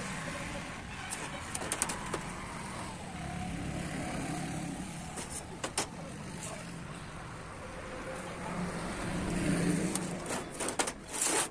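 Light metallic clicks and taps as a steel rule, scriber and square are handled on a steel sheet and workbench: a few about a second in, two near the middle, and a cluster near the end. Under them runs a steady low background rumble.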